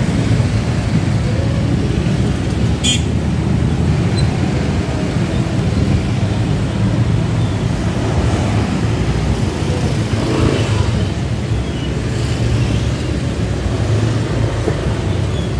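Street traffic of cars and motor scooters passing close by, a steady low rumble. There is a brief sharp click about three seconds in.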